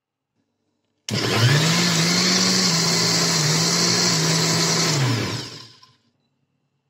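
Electric mixer grinder (blender) switched on about a second in, running steadily at speed for about four seconds while churning cream into butter, then switched off and spinning down.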